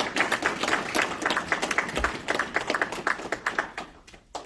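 A small group applauding, a dense patter of hand claps that thins out toward the end, with one last clap.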